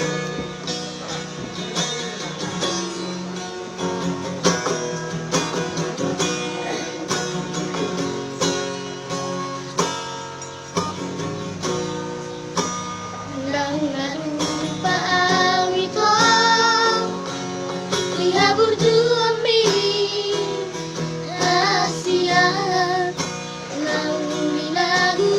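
Music: acoustic guitar picking and strumming a song's introduction. About halfway through, a higher wavering melodic line with vibrato joins over the guitar and grows louder.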